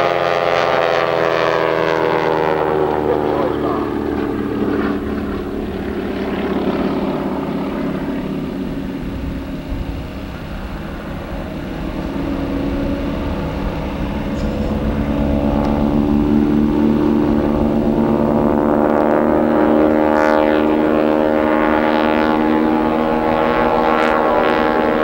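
Two aerobatic biplanes' piston engines and propellers running together in a formation pass, their pitch falling as they go by. The sound fades about ten seconds in, then grows loud again as they come back past, falling in pitch near the end.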